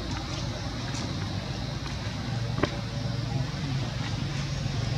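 Low, steady motor-vehicle engine drone over outdoor background noise, with one sharp click about two and a half seconds in.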